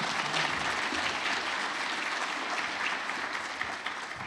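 Audience applauding, beginning to die down near the end.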